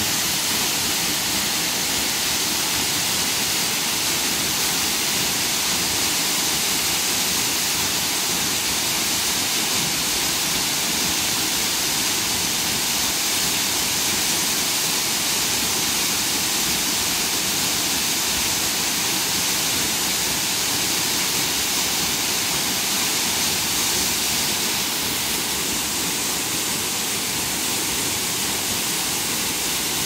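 Waterfall plunging into a rock pool: a steady, unbroken rush of falling water.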